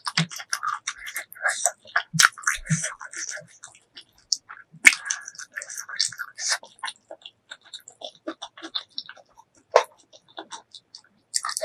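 Close-miked eating of spicy pork leg curry with rice: wet chewing and lip smacking, broken by a few sharp clicks about 2, 5 and 10 seconds in.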